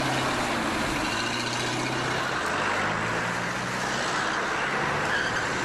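Motor vehicle engines running while driving cross-country over wet ground: a steady drone whose pitch shifts a couple of times, with a rough noise over it.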